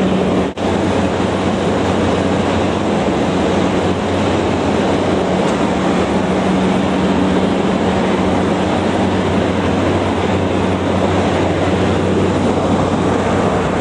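Cabin noise of a Cessna Caravan in flight: its PT6A turboprop engine and propeller make a loud, steady drone with a low hum, dipping briefly about half a second in.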